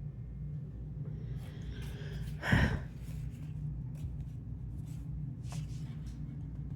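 A short breathy snort about two and a half seconds in, over a steady low hum and a few faint clicks.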